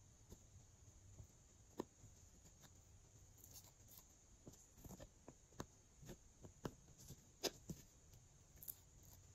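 Glossy slime being handled and mixed, giving faint, irregular sticky clicks and small pops that come more often in the second half.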